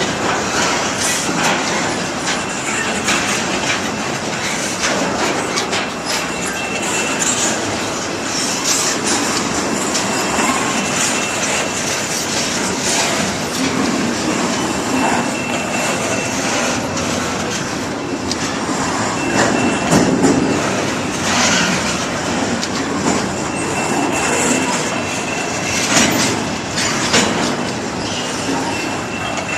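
Freight cars of an Iowa Interstate Railroad train rolling past with a steady wheel-on-rail rumble, broken by frequent clicks and clanks over the rail joints. A faint, thin, high wheel squeal comes and goes.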